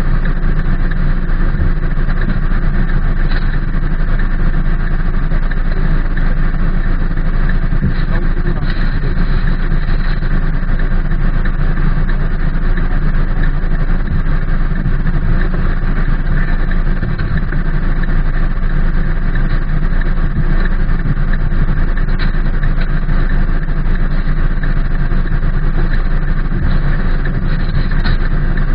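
Steady rain falling on a car's roof and windows, heard from inside the car, over a constant low rumble.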